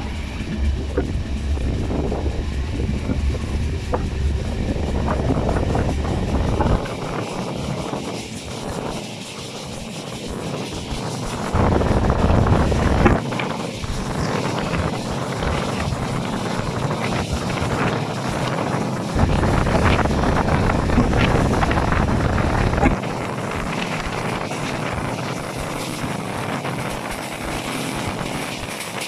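A passenger train running at speed, heard from an open window, with wind buffeting the microphone in gusts that come and go over the steady rush of the train.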